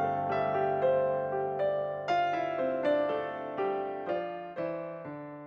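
Background piano music, single notes struck one after another and left to ring, fading out steadily toward the end.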